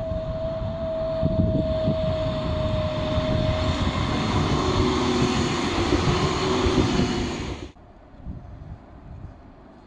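Modern articulated low-floor tram passing close by: rumbling over the rails with a steady whine, which drops to lower tones as the tram goes past. About three-quarters through, the sound cuts off sharply, leaving faint street background.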